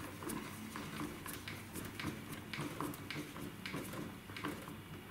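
Screwdriver tightening a screw terminal clamp on an electrical terminal block: light, irregular clicks and ticks as the screw is turned down onto the live wire and link.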